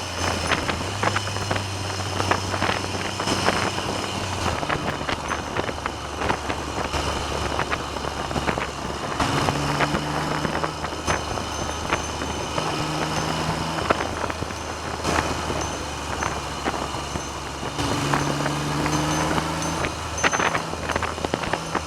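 Triumph Trident three-cylinder motorcycle engine running at road speed under heavy wind noise on the microphone. The engine note changes a few times as the revs rise and fall.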